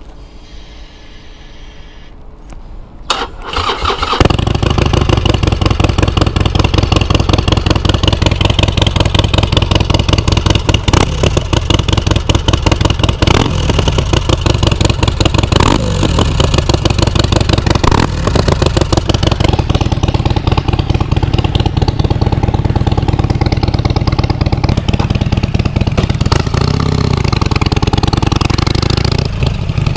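2016 Harley-Davidson Forty-Eight's 1200 cc air-cooled V-twin, fitted with an aftermarket muffler, being started: about three seconds in the starter cranks briefly and the engine catches. It then idles loudly with an even pulsing beat, its pitch rising and falling a few times.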